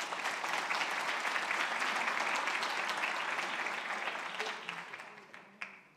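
Audience applauding, starting at once and dying away over the last second or so.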